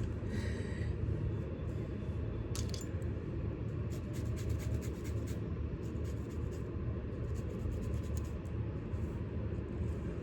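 Light, irregular clicking and rattling of small hard objects being handled, over a steady low rumble.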